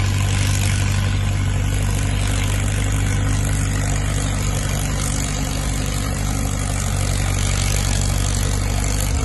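International Harvester TD-9 crawler dozer engine idling steadily, with a constant low hum.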